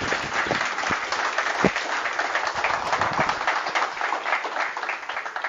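A group of people applauding, with dense clapping that dies away right at the end.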